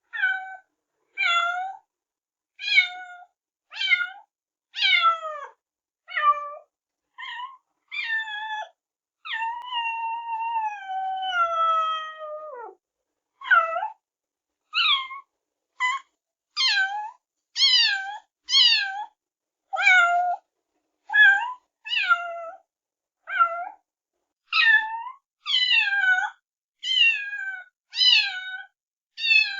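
Kittens meowing: high-pitched short meows at roughly one a second, with one long drawn-out meow about ten seconds in that drops in pitch at its end.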